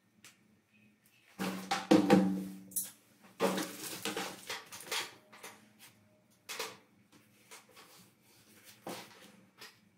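Handling sounds on a tabletop: a clear plastic sleeve rubbed and crinkled against a cardboard mailer, with knocks as objects such as a clothes iron and a steel ruler are set down. A cluster of loud scrapes and knocks comes in the first half, then a few single knocks.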